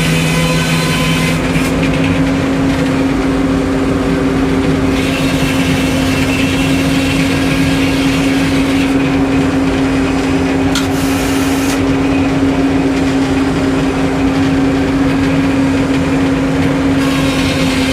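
Sawmill engine running steadily at a constant speed, a loud even hum.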